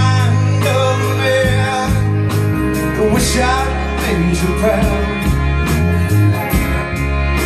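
Live band playing a song on electric guitar, acoustic guitar and bass guitar over a steady beat.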